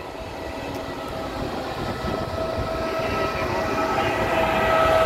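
Trenitalia E.464 electric locomotive hauling a regional passenger train approaches and passes close by. A steady whine grows louder over the rumble of the wheels on the rails as it nears.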